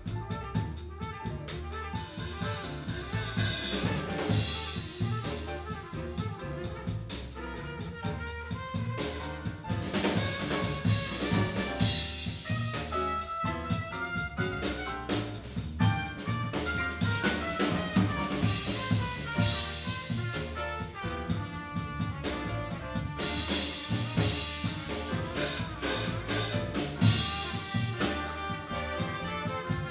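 A live jazz sextet playing: saxophone, trumpet and trombone over piano, double bass and a drum kit, with the drums prominent.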